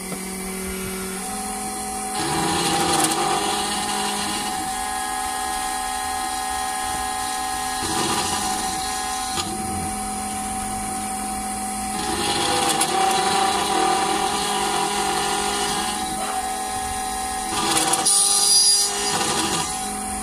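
SEC-E9 computerized key cutting machine's spindle running with a steady whine as its small end-mill cutter mills a car key blank from its key code. The cutting grows louder and harsher in three stretches, about two, twelve and seventeen seconds in, as the cutter bites into the blade.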